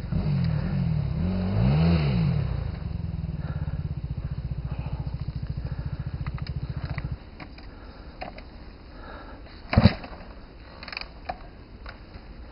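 Enduro dirt bike engine revving up and down on a steep, rough climb, then running at a steady fast putter before it cuts out abruptly about seven seconds in. A sharp knock follows about ten seconds in.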